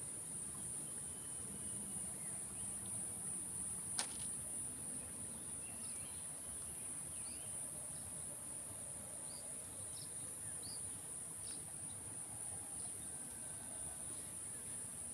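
Steady high-pitched insect chorus, crickets or cicadas, with a single sharp click about four seconds in and scattered short chirps through the middle.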